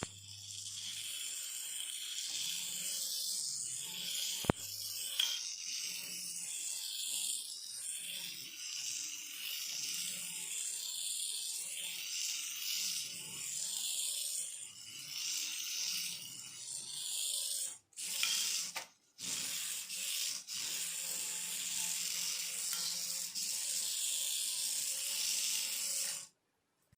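Turbo Racing 1/76 Mini Cooper RC car running: a high, hissy whir from its tiny brushed motor, gears and tyres that swells and fades with the throttle. It breaks off abruptly a few times.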